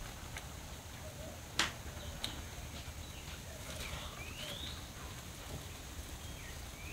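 A few sharp knocks from handling cookware and firewood at a wood-fired clay stove, the loudest about a second and a half in, over a low steady rumble. A bird gives a short rising chirp twice in the second half.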